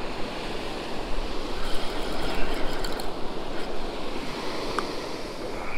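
Spinning fishing reel cranked steadily, winding in a crab snare that feels heavy on the line, over the steady wash of surf breaking on the beach.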